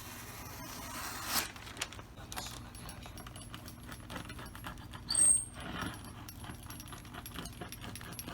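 Small clicks, scrapes and rustles of hands and tools working a new vinyl panel into a window frame. There is a louder rasp about a second in and a brief high squeak about five seconds in.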